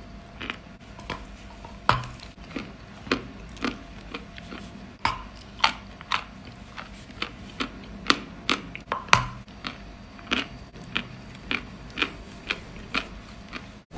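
Crunchy cookie in chocolate cream being chewed close to the microphone: a steady run of sharp crunches and mouth clicks, about two a second.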